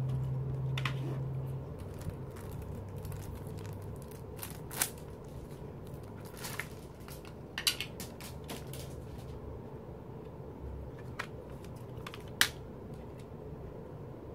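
Plastic CD jewel cases being handled: scattered sharp clicks and light clacks, the loudest a little before the end, over a low hum that fades after the first second or so.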